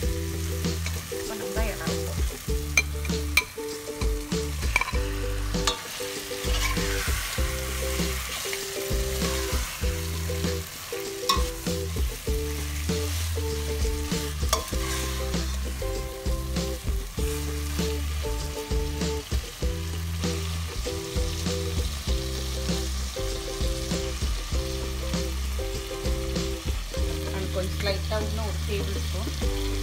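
Prawns frying and sizzling in a thick onion-tomato masala in a stainless steel pot, stirred with a slotted steel spoon that clicks and scrapes against the pot. Background music with a repeating bass line plays alongside.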